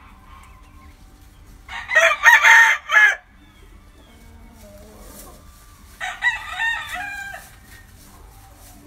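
A game rooster crowing twice: a loud crow about two seconds in, and a second, quieter crow about six seconds in.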